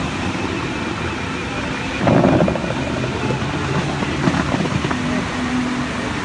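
Bellagio fountain's water jets rushing and spraying steadily, with a louder surge of spray about two seconds in and smaller bursts around four to five seconds.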